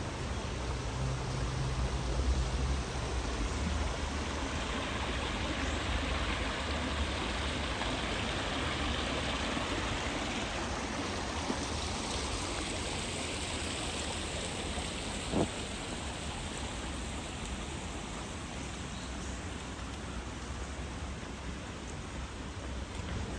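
Yazawa River stream flowing: a steady rush of water. A low rumble runs under it for the first few seconds, and a brief short sound stands out about fifteen seconds in.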